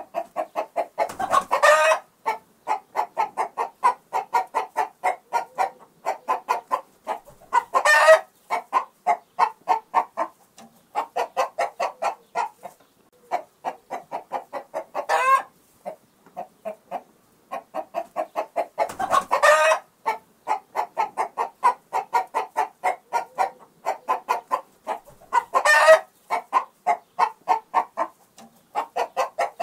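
Chickens clucking in a steady run of short clucks, with a louder, longer squawking call about every six or seven seconds, five in all.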